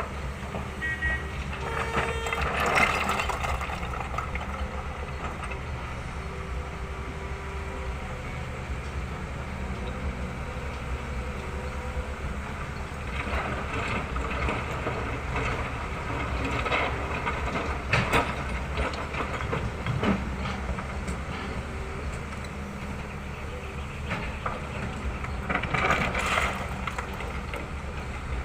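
Long-reach excavator's diesel engine running steadily, with clanks and scraping from the bucket working rock, loudest a few seconds in and again near the end.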